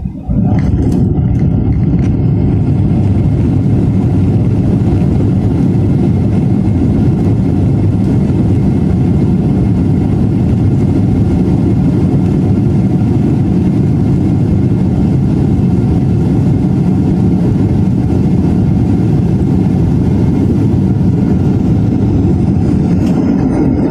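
Loud steady rumble and roar inside a Boeing 737-800 cabin during the landing roll. It starts abruptly just after touchdown, the CFM56-7B engines in reverse thrust as the jet brakes on the runway, then falls away near the end as the aircraft slows.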